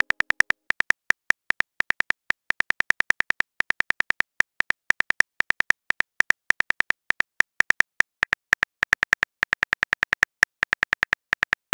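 Phone keyboard typing sound effect: rapid key clicks, about six a second in uneven runs with short pauses, as a text message is typed out letter by letter.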